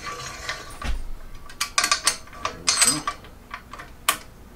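Irregular metal clicks and clinks from a threaded-rod string clamp, its steel washers and nut knocking and scraping against the string jig's rail as it is fitted by hand. There are clusters of clicks about two and three seconds in, and a single sharp click near the end.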